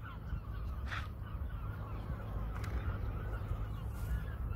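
Distant birds calling, many short faint calls, over a low steady rumble.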